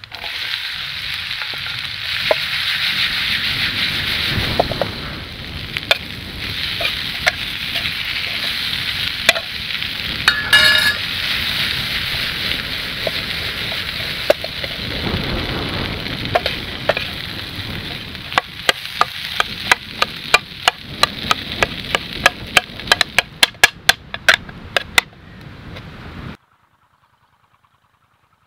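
Potato cubes hitting hot oil with turmeric in a metal pan over a wood fire and frying with a loud steady sizzle as they are stirred. Toward the end, quick sharp clicks of stirring against the pan come through the sizzle, and then the sound cuts off suddenly.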